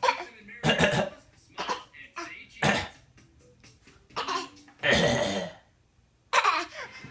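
A young child giving a string of short, put-on coughs, about six of them spaced a second or so apart, as a playful "coughing" game.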